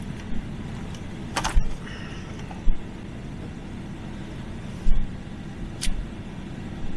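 Steady hum of a pickup truck's air-conditioning blower and running engine inside the cab, with a few sharp clicks and knocks, the loudest about one and a half seconds in.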